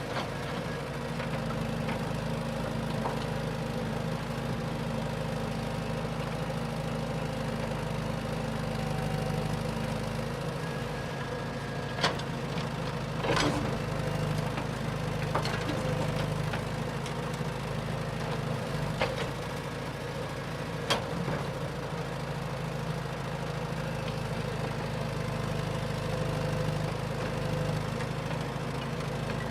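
An engine running steadily, with a few sharp clicks now and then.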